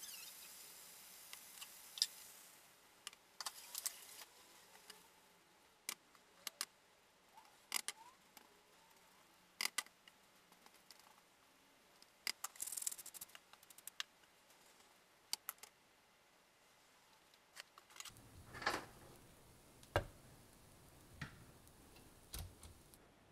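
A faint sizzle dies away in a nonstick frying pan. Then come scattered clicks, taps and scrapes of a spatula stirring vegetables and egg in the pan. Near the end a faint low hum sets in, with a couple of knocks.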